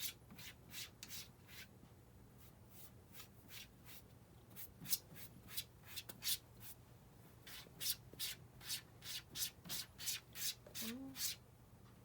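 A cat's paw scraping and rubbing repeatedly at a hard surface in short, dry strokes, about two a second, in runs with brief pauses, as it tries to get food to come out.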